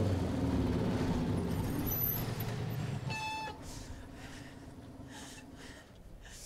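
Several motorcycles riding in and slowing to a stop on sand, their engines loud at first and dropping to a quieter idle after about three seconds, with a brief high squeal as they pull up.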